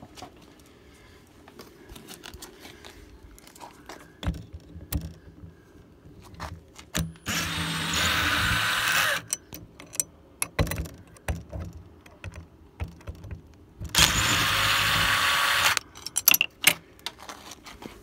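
Cordless drill-driver running in two runs of about two seconds each, backing out the mounting screws of an RV entry-door lock, with light clicks and knocks in between.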